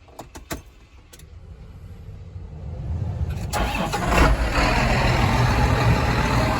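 A few sharp clicks, then an engine starts and builds up over about three seconds to a loud, steady run, as machinery is started up to unload a grain wagon into the bin.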